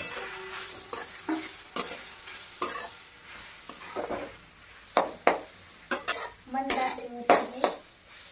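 Flat metal spatula scraping and knocking against a metal kadhai, stirring grated fresh coconut that is frying in ghee, with a light sizzle under the strokes. The strokes come irregularly, about one or two a second.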